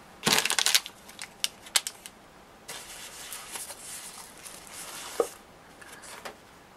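Plastic packaging being handled: a quick burst of crinkling at the start, a few scattered crackles and clicks, then a soft rustle of plastic wrap for a couple of seconds with one sharp tick.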